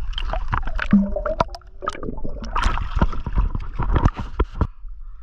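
Hooked greater amberjack thrashing at the surface beside a kayak: a run of sharp splashes and gurgling water close to the microphone, stopping about four and a half seconds in.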